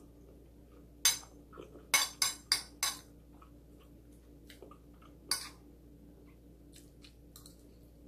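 Metal spoon clinking against a plate as food is scooped up: one sharp clink about a second in, a quick run of four clinks around two to three seconds in, and one more a little past five seconds.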